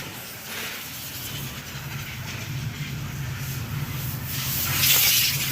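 Hyundai Verna engine and road noise while driving: a steady low drone that builds slightly, with the engine running smoothly and no knocking after four new spark plugs and a cleaned throttle body. A brief hiss comes about half a second in, and a louder rush of hiss comes near the end.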